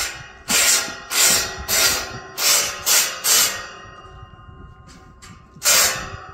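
A quick run of short hissing spray bursts, six in about three seconds, then one more near the end.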